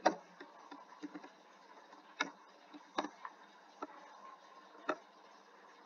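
A few separate key clicks from a computer keyboard, spaced a second or so apart, over a faint steady hiss.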